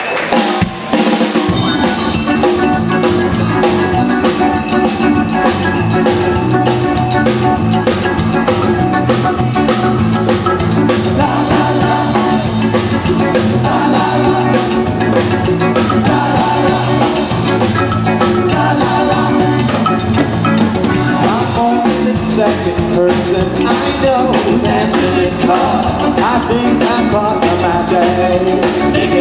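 Live band playing a song: drum kit and hand percussion keeping a steady beat under electric bass and electric guitar.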